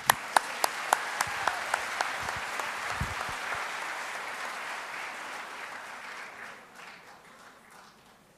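Audience applauding, a few sharp individual claps standing out at the start; the applause dies away over the last couple of seconds.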